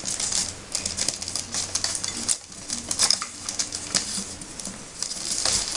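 Rolled newspaper tubes rustling and crackling as they are handled and woven between upright paper stakes, a close run of irregular small clicks and scrapes.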